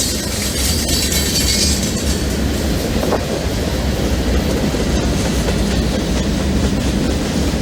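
CN freight train rolling past at steady speed, its wheels clicking over the rail joints under a continuous rumble. A high wheel squeal from the curve fades out in the first moment.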